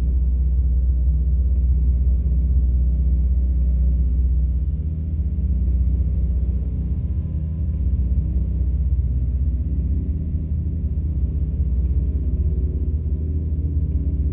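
Experimental noise music from analog synthesizers: a loud, deep, steady drone with nearly all its weight in the bass and little high end, easing slightly about five seconds in.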